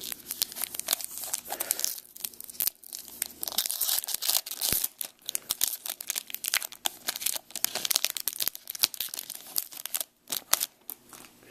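Foil wrapper of a Topps baseball card pack being torn open and crinkled by hand: a long run of sharp, irregular crackles with brief pauses.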